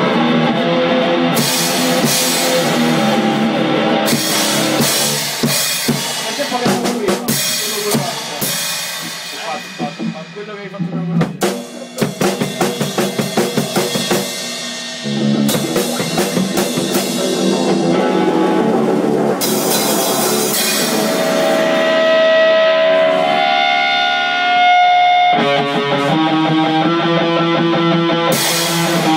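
Drum kit played with snare, bass drum and cymbals, together with a guitar; the guitar holds long sustained notes in the second half.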